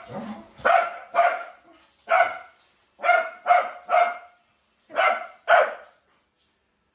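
Corgi barking at a running robot vacuum: about eight sharp barks, mostly in quick pairs with short gaps between.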